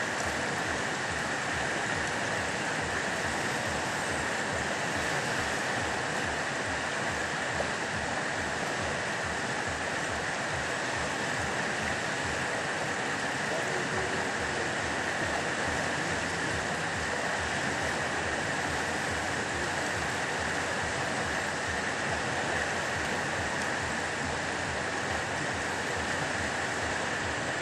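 Fast-flowing river rushing steadily over rocks.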